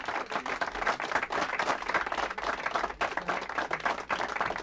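An audience applauding: many hands clapping in a dense, steady clatter.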